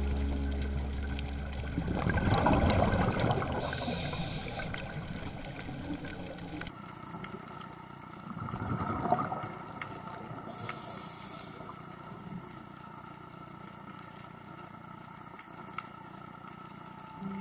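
Muffled underwater bubbling and rushing of a scuba diver's exhaled breath through the regulator, in two bursts, about two seconds in and again about eight seconds in, over a low steady hiss.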